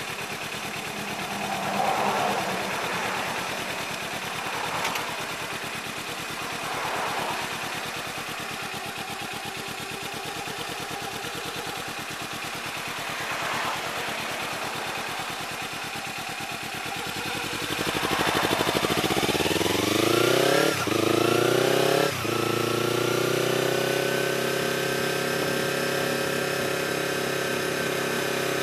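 Kawasaki Ninja 300's parallel-twin engine under way, heard with wind and road noise from a tank-mounted camera. About two-thirds of the way in the engine revs rise, with two quick gear changes about a second and a half apart, then it settles into a steady cruise.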